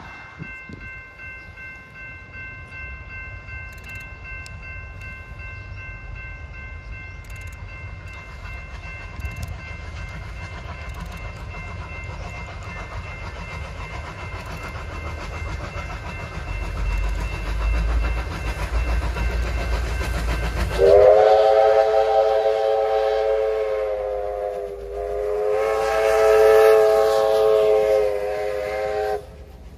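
Victorian Railways R class steam locomotive R707 approaching with a rising rumble, then sounding its whistle, several notes at once, in two long blasts with a short break between them as it passes close by.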